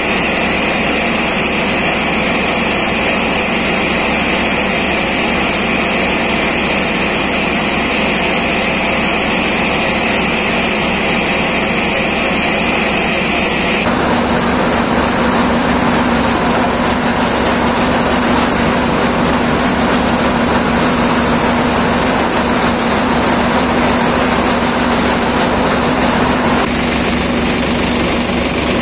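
Tractor-driven paddy thresher running at full working speed, its threshing drum and cleaning fans going under the drone of the driving tractor's engine, a steady loud machine noise as straw is fed in and blown out. The sound changes abruptly about halfway through and again near the end.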